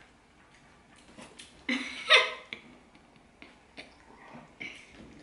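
A child's short breathy giggles, the loudest burst about two seconds in, with quieter mouth noises of eating between them.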